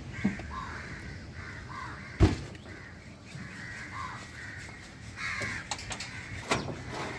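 Crows cawing repeatedly, with one loud thump about two seconds in as the cobia's severed head is set down on the cutting table, and a few sharper knocks near the end.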